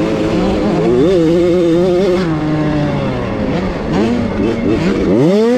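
Two-stroke engine of a 65cc motocross bike heard up close on board, its revs rising and falling as the rider works the throttle over the dirt track. Near the end the revs climb sharply.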